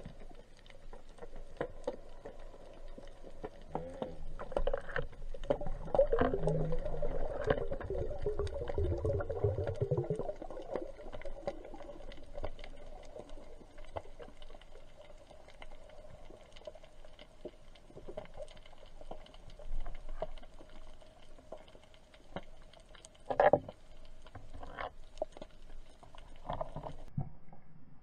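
Underwater sound picked up by a diver's camera: muffled water movement with many scattered faint clicks. A wavering hum runs for several seconds in the first half, and a sharper knock comes about twenty-three seconds in.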